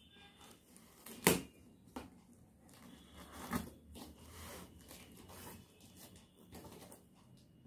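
Packing tape on a cardboard shipping box being cut and torn, and the box's flaps pulled open: sharp snaps and tearing with cardboard rustling and scraping. The loudest snap comes about a second in.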